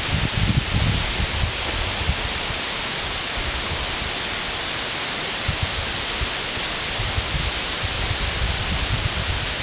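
Steady, even rush of a tall waterfall, the second fall of the Chutes du Carbet, crashing onto a rocky basin. Low wind buffets on the microphone in the first second and again near the end.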